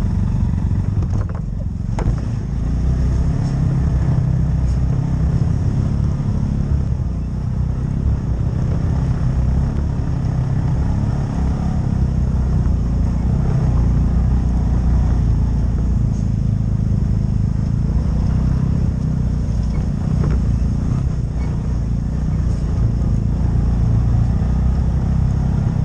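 CFMOTO UForce side-by-side's engine running steadily as it drives along a dirt trail: a low drone, with a sharp knock about two seconds in.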